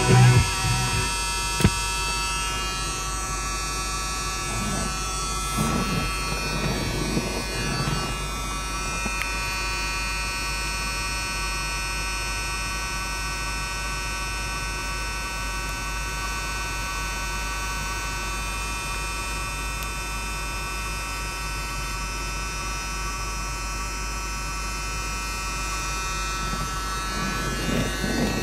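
Music from the car radio cuts off about half a second in, leaving a steady hum with a high buzzing whine in the car's cabin.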